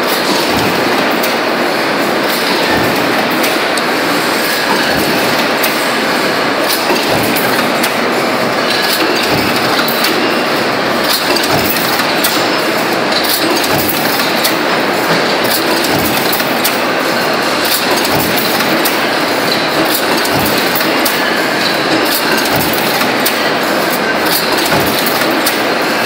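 Power stamping press line running in production: a steady dense mechanical clatter, with regular short low thuds as the press strokes while a coil-fed strip of sheet steel is fed into the die.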